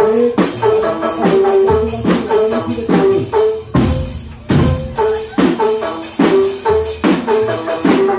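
A drumband playing: snare and tom drums beat a fast, steady rhythm under a repeating melody line.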